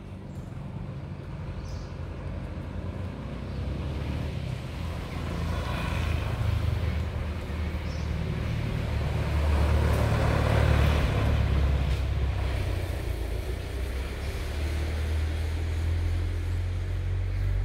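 A motor vehicle's engine running with a steady low hum that grows louder over the first several seconds, with a swell of wider road noise a little past the middle, as of a vehicle passing close by.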